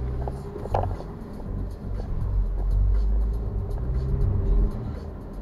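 Car engine and road rumble heard inside the cabin as the car pulls away from a stop and crosses an intersection, the rumble swelling after about two seconds. A single sharp click just under a second in.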